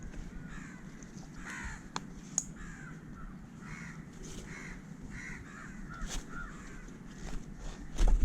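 Crows cawing, a string of short harsh calls over a steady low background hum. There are scattered light clicks, and a heavy low thump just before the end.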